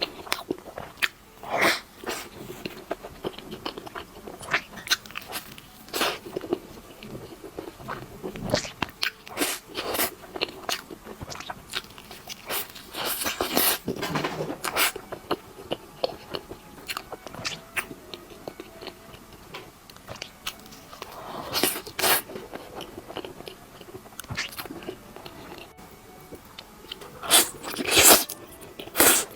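A person eating close to the microphone: a steady run of bites and chewing, with many short crisp crunching clicks and a few louder bites near the end.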